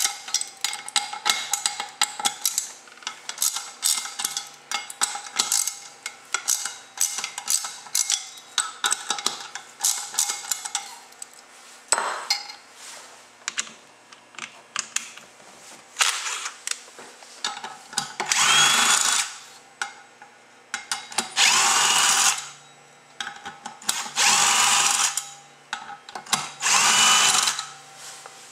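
Metal clicking and tapping of the clutch parts being handled, then a power driver running in about five short runs of a second or so, each with a rising whine, spinning out the number 40 Torx screws of a Ski-Doo QRS driven clutch cover.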